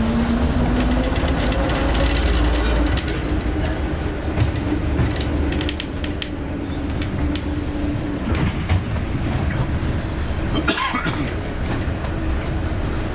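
Train running along the line, its engine note rising over the first few seconds as it picks up speed and then holding steady, with the wheels clicking over rail joints.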